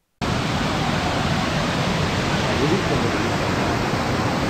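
Masila Falls waterfall: falling water making a loud, even rushing noise that cuts in abruptly about a quarter of a second in, after a moment of silence.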